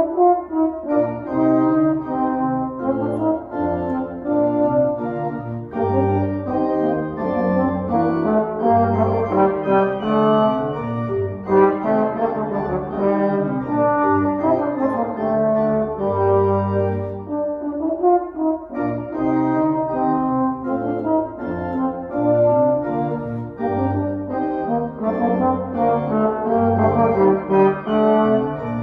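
Trombone and pipe organ playing a piece together: the trombone carries held melody notes over sustained organ chords with low pedal bass notes, in a large church.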